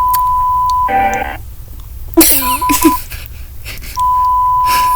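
Portuguese emergency alert tone: a steady high beep held for over a second and cut off by a short, harsher buzzing tone, then after a pause the long steady beep starts again about four seconds in.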